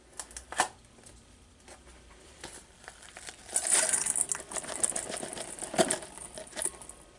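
Flour being poured into a stainless steel mixing bowl: a couple of short knocks near the start, then a rustling, crackly hiss from about halfway through as the flour falls in.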